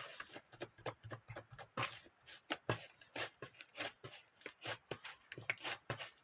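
Irregular light clicks and taps, several a second, as a spoon works through a bowl of strawberry shaved ice.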